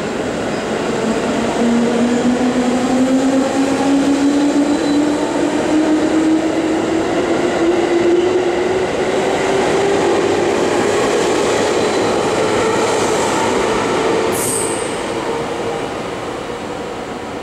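Two coupled JR Central 311 series electric trains pulling out of the platform. The traction motor whine rises steadily in pitch as they accelerate, over the rumble of the wheels on the rails. There is a brief high squeal about fourteen seconds in, and the sound fades as the train clears the platform.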